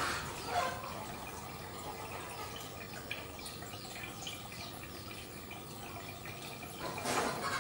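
Water trickling and splashing, with many small drips and plops over a faint steady hum; it swells louder near the end.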